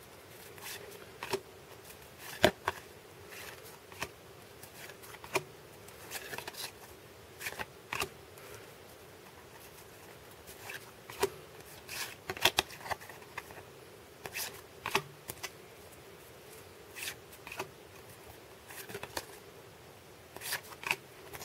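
1992 Upper Deck baseball cards being flipped through by hand, one card at a time slid from the front of the stack to the back: short papery slides and light snaps of card stock at an irregular pace of about one a second, the sharpest snap about two and a half seconds in.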